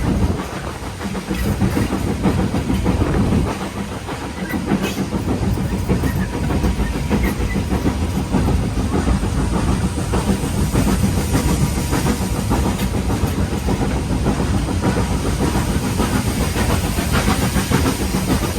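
A standard-gauge steam train running, heard from on board: a steady rumble of wheels on the track with occasional clicks, and some steam hiss.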